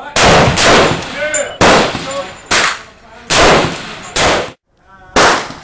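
AR-15 rifle fired semi-automatically outdoors: about seven loud shots at uneven spacing, each with a short echoing tail.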